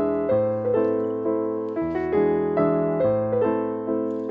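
Background piano music: a gentle melody over chords, with notes struck about twice a second, each fading after it is played.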